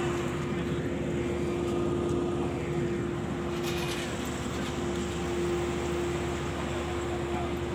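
Steady machine drone of airport apron equipment running, with a constant mid-pitched hum over a low rumble, and a brief hiss about halfway through.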